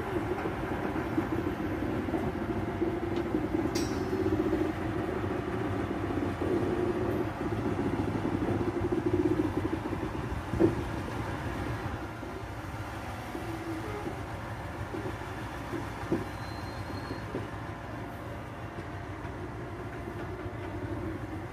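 Plasser 12-tonne rail crane's engine running steadily while the crane works, a little louder for the first ten seconds or so and then easing off. A sharp metallic knock about ten seconds in and a lighter one a few seconds later.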